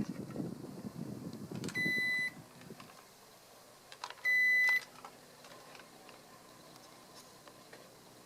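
Sharp AY-B22SD air conditioner's indoor unit beeping twice, two short high beeps about two and a half seconds apart. Before the second beep a low rumbling noise stops, and a few faint clicks come just before it.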